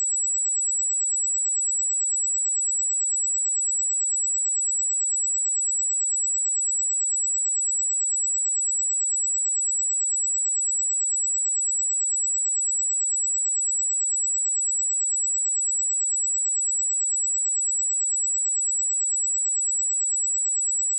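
A pure 7797 Hz sine-wave test tone: one steady, high-pitched whistle at constant level with no other sound.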